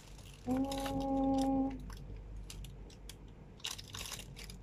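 A woman's closed-mouth hum, one steady 'mmm' held for about a second, early on. Around it, the rustle of plastic wrapping and light clicks from handling a handbag with a metal chain strap.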